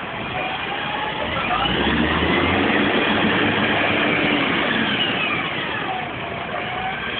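Diesel engine of a double-decker bus running as it manoeuvres to turn round, growing louder from about a second in and easing off after about five seconds as the bus pulls across close by.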